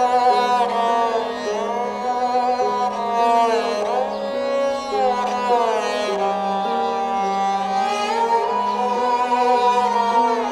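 Background film score: a melody of long notes that glide in pitch, over a low two-note figure that rocks back and forth at an even pace.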